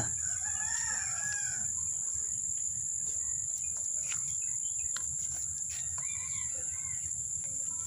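A rooster crows once, a call of about a second and a half at the start, and a shorter call follows about six seconds in, over a steady high buzz of crickets.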